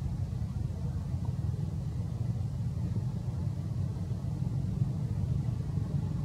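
A steady low rumble with no distinct calls or knocks.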